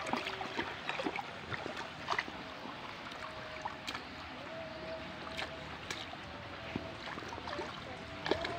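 Shallow ditch water sloshing and splashing as a child wades through it and dips a small hand net, with many short splashes and light clicks through it.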